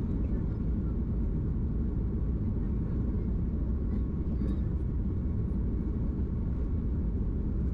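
Steady low rumble inside the cabin of a Boeing 737 MAX 8 airliner, heard from a passenger seat.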